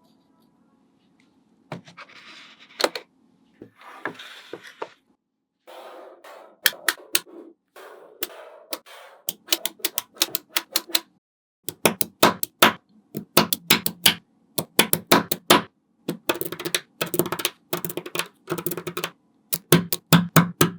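Small magnetic balls clicking and snapping together as they are set in place one after another, in quick runs of sharp clicks that grow denser in the second half, with softer rattling before the clicks begin.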